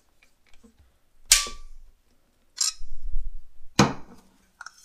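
Torque-limiting Torx screwdriver giving a sharp click with a brief ring about a second in, as a handguard mounting screw reaches its set torque of 30 to 40 inch-pounds. A second, lighter click follows, then handling rub and a louder knock near the end as the tool and the AR-15 upper receiver are handled.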